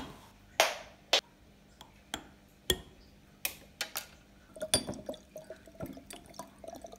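Liu Shen florida water trickling and dripping from a small narrow-necked glass bottle into a glass jar, with sharp clicks and taps of glass. Small plinks cluster in the last few seconds.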